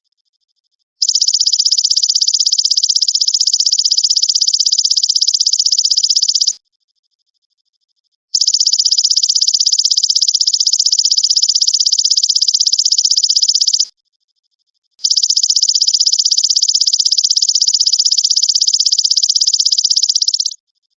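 Golden grasshopper ('belalang emas') insect calling in three long, fast, even trills of about five seconds each, with short pauses between, high in pitch.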